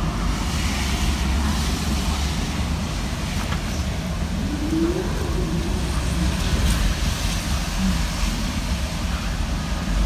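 Strong wind from an approaching typhoon blowing past a screened window, a steady whooshing with a deep rumble underneath, and a whistle that rises and falls about five seconds in.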